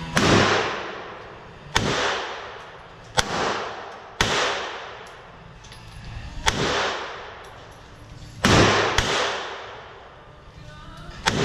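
Pistol shots from several shooters on a covered range firing line: about eight sharp, irregularly spaced reports, two of them in quick succession, each followed by a long echoing tail.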